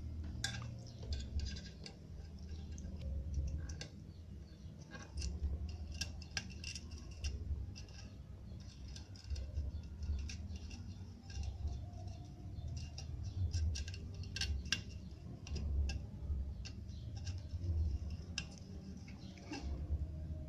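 Scattered small clicks and taps of hand tools working on a subwoofer's cone and terminals, over a low rumble.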